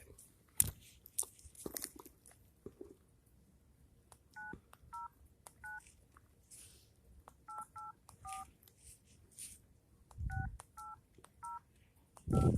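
A phone keypad dials a ten-digit number in touch-tone beeps. There are ten short two-note beeps in groups of three, three and four, with faint taps between them.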